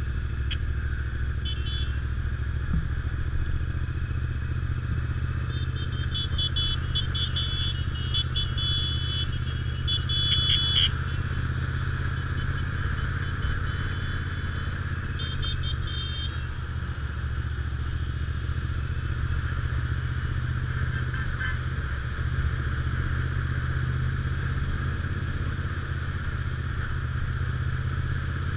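Motorcycle engine running steadily while riding at cruising speed, with wind noise on a helmet-mounted microphone. A few short high-pitched tones come through about six to eleven seconds in.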